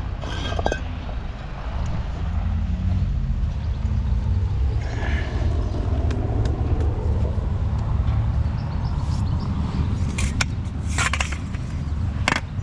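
Steady low engine rumble of a running vehicle or machine, with a few sharp knocks near the end.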